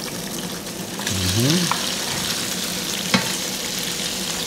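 Salmon cubes sizzling as they drop into hot oil in a frying pan; the sizzling grows louder about a second in as more pieces go in. A single sharp click comes about three seconds in.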